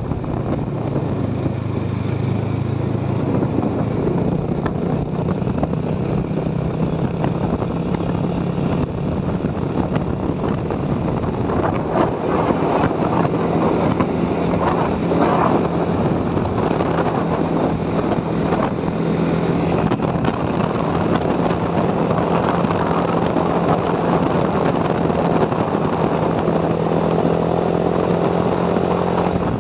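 Motorcycle engine running steadily at cruising speed, heard from the rider's seat, under a steady rush of wind and road noise.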